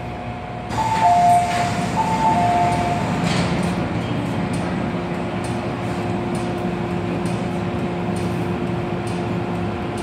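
MTR M-train doors opening at a station stop: a two-note chime, high then low, sounds twice as the doors slide open with a sudden rush of noise about a second in. Then the standing train's steady hum continues, with a faint held tone in it.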